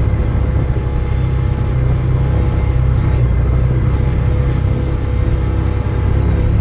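Off-road vehicle engine running steadily under way, with a constant low drone and the noise of the ride over the trail.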